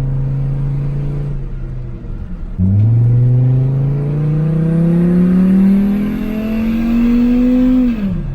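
Chevy Colorado pickup's engine running under load: it holds steady, eases off about a second and a half in, then pulls with its pitch climbing smoothly for about five seconds before dropping off near the end. It runs cleanly, without the misfiring it had after the storm.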